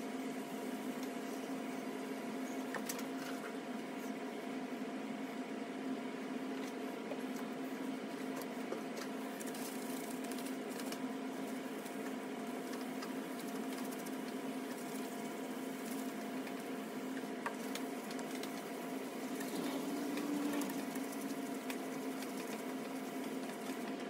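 A steady mechanical hum runs throughout, with faint scratching and rubbing as hands wet-sand and wipe a plastic lightbar dome.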